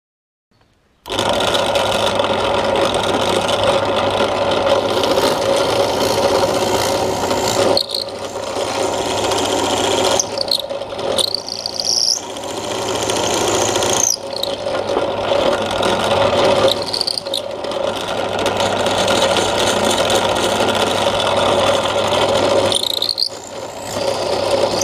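Einhell BT-BD 401 bench drill press running, its twist bit boring into a wooden block, starting abruptly about a second in. A steady motor hum runs under the cutting noise, which dips briefly several times with short whines that slide in pitch.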